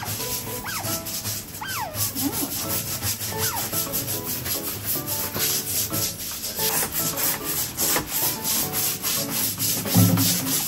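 Asian small-clawed otter giving several short, high squeaky chirps over a continuous scratchy rubbing sound, with a low thump near the end.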